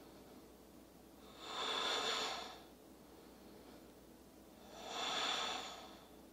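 A woman breathing slowly and audibly: two long breaths, each about a second, roughly three seconds apart.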